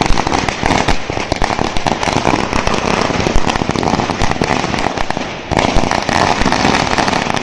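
A long string of firecrackers going off in a rapid, continuous crackle of bangs. There is a short lull a little past five seconds in before the bangs start again.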